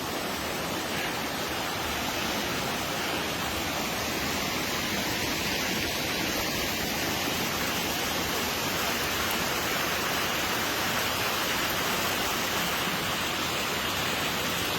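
Waterfall and stream water rushing over rocks: a steady, even noise that holds without change.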